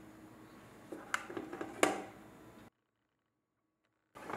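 A few light clicks and knocks from handling a pink air fryer's open basket, over a faint steady hum. The sound cuts off suddenly to dead silence for about a second and a half near the end.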